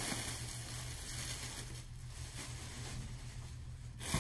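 Cardboard shipping box being opened by hand: continuous rustling and scraping of the cardboard and packing, which stops abruptly near the end.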